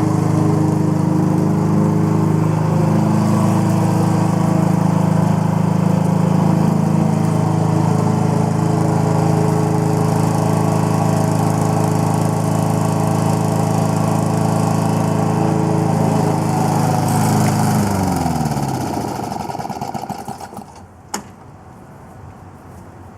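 1986 Craftsman Eager 1 push mower's 4 hp engine running steadily, then shut off about 17 seconds in, its pitch falling as it winds down to a stop over a couple of seconds. A single sharp click follows a moment later.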